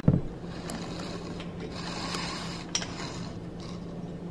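Glass bottles being handled on a kitchen counter: a few faint clicks and knocks over a steady low hum.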